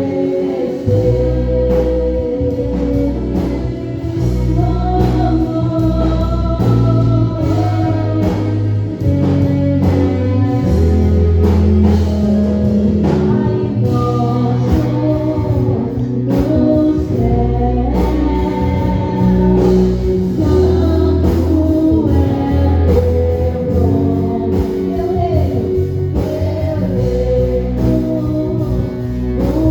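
Gospel worship song: a voice singing over band accompaniment with bass notes and a steady drum beat.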